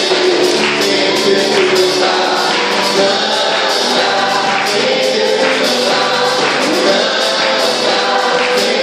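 Live gospel worship music: a group singing together over a band with a rhythmic tambourine.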